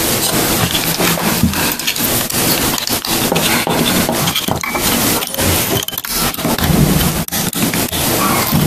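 Continuous scraping and rubbing handling noise with many small clicks: the slide, recoil spring and a steel assist rod of a Walther P22 pistol being worked by hand during reassembly.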